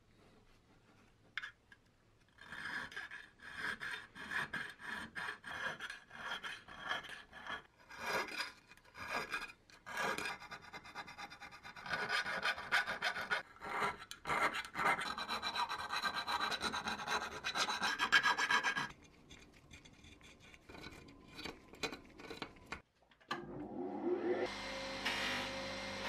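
Needle file rasping in quick back-and-forth strokes inside the holes of a steel lock case plate, from about two seconds in until about 19 seconds. Near the end a bench polishing wheel's motor comes up to speed.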